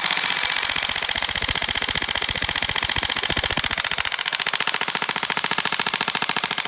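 BOLT SR16 airsoft electric gun (AEG) firing on full auto: one long unbroken stream of rapid, evenly spaced shots, each with the clack of its recoil mechanism.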